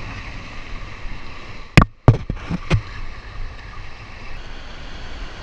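Muffled surf and wind noise through a GoPro's waterproof case. About two seconds in come four or five sharp knocks close together as the cased camera and its pole mount are handled.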